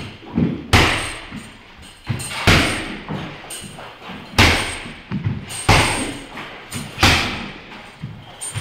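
Strikes landing on a hanging heavy punching bag: five heavy thuds about one and a half seconds apart.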